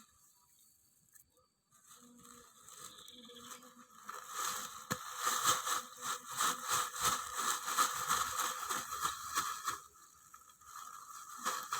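Dry manure being scooped and scattered by hand over seed ginger: a run of quick crunching, rustling scrapes that starts about four seconds in and eases off near the end.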